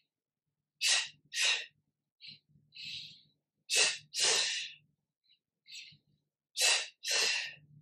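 A woman's forceful, audible breathing in a yoga breathing exercise (kriya): two short, sharp breaths in quick succession about every three seconds, with softer breaths in between.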